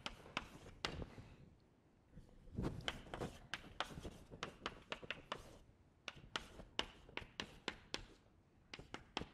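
Chalk writing on a blackboard: a run of quick taps and short scratches as symbols are chalked, with a brief pause about a second and a half in.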